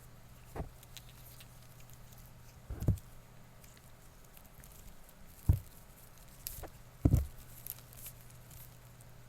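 Handling noise on a close-up recorder microphone: a few irregular soft thumps and bumps, three of them louder, over a faint steady low hum.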